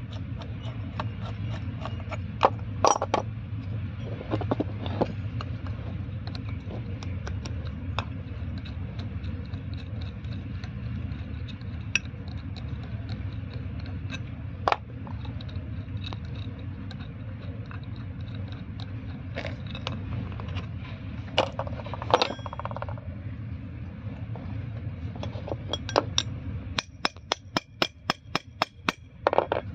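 Metal clinks, knocks and scrapes of steel spanners on a truck's front brake quick release valve as its bracket and fittings are unbolted by hand, over a steady low hum. Near the end comes a quick run of light metallic clicks, about four a second.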